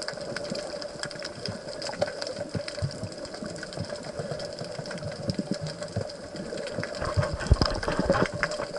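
Underwater sound picked up by a submerged camera: a steady engine-like hum with constant fine crackling clicks. In the last couple of seconds heavier low thumps and water movement come in.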